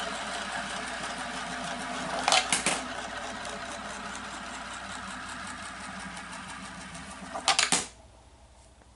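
Coins rolling around the funnel of a vortex coin bank, a steady whirring rattle that slowly fades. There is a brief clatter about two and a half seconds in, and a louder clatter about seven and a half seconds in as the last coin drops through the neck into the coin-filled base, after which the rolling stops.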